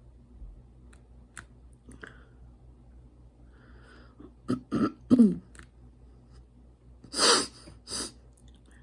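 A person clearing their throat, a few short gruff sounds with falling pitch, then coughing twice near the end.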